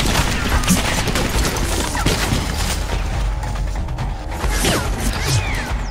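Gunfire sound effects in a battle scene: a dense run of shots and bullet impacts over a music score.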